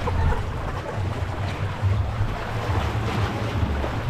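Wind buffeting the microphone in irregular low gusts, over the wash of sea waves on the shore.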